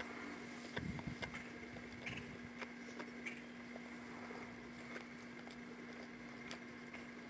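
Soft, scattered wet clicks and smacks from the mother dog and her newborn puppies' mouths as they suckle and eat, over a faint steady hum.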